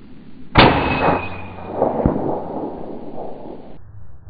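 A shot from a .357 Benjamin Bulldog big-bore air rifle, about half a second in: a sharp report followed by a long, drawn-out decay with a faint ring, the audio played back slowed down.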